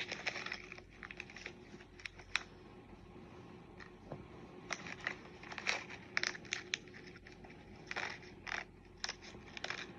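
Plastic packaging crinkling in the hands, with scattered small clicks and taps as packets of beads are handled.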